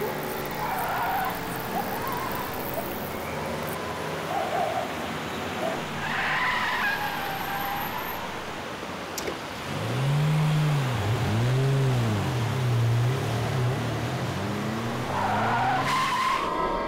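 Car engine running over a steady rush of road noise, then revving up and down about five times in quick succession.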